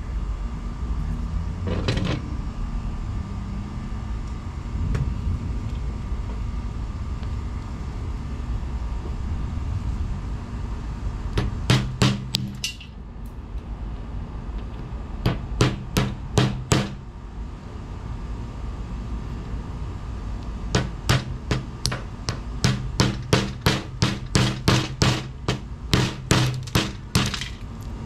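Hammer blows on a corroded, coin-shaped lump lying on a metal block, breaking open the crust to see what is inside. The blows come singly, then in short bursts, and near the end as a long run at about two a second.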